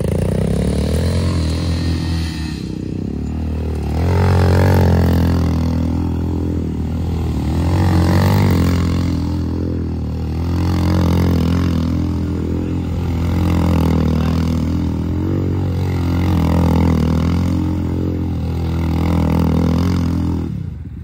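Modified ATV's engine running while being ridden, revving up and easing off in repeated swells every few seconds.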